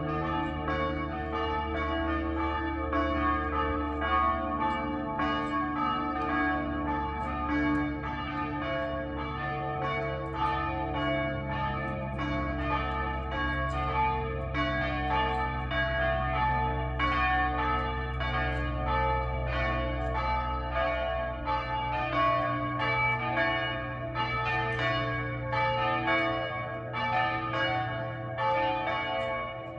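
Church bells being rung in changes: a steady, even run of strikes from several bells, their tones ringing on and overlapping.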